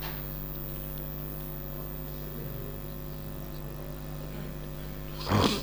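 Steady electrical mains hum from a microphone and loudspeaker system, with one short louder sound near the end.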